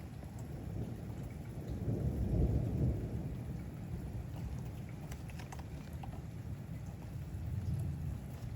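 Thunder rumbling low in a night thunderstorm, swelling about two seconds in and easing off, with a second, lighter rumble near the end. Rain falls throughout, with a few sharp ticks of drops striking.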